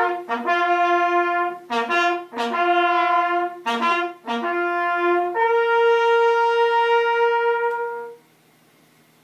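Two small brass hunting horns played together, sounding a German hunt signal: a run of short and medium notes, then one long held note from about five and a half seconds in that stops at about eight seconds.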